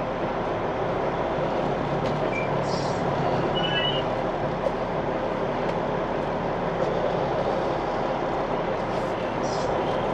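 Semi truck's diesel engine running steadily at low speed, heard from inside the cab as the truck creeps forward, with a couple of short, high hisses.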